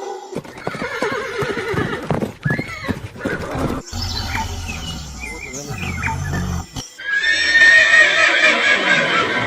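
Horses neighing and whinnying in a series of short spliced clips, with abrupt cuts between them. The calls in the last few seconds are the loudest.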